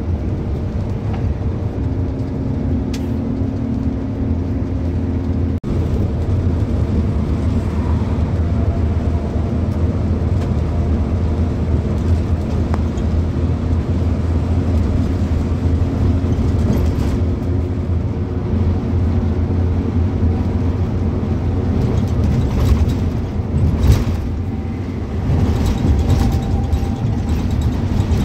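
Steady engine and road drone inside the cabin of a moving vehicle on a highway, with a few short knocks and rattles, the sharpest about 24 seconds in.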